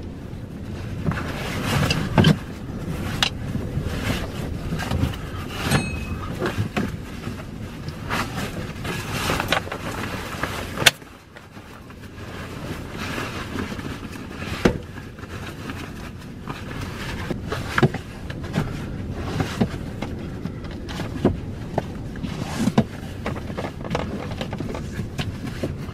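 Strong gusty wind buffeting a parked car, heard from inside the cabin, with frequent knocks and rattles. A sharp click comes about eleven seconds in, after which it goes briefly quieter.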